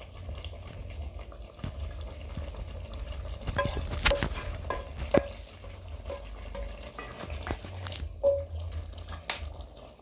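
Metal ladle knocking and scraping against an aluminium saucepan as cooked vegetables and sauce are poured in, a string of clinks with a short ring, bunched together twice, over the low sizzle of food frying in the pot.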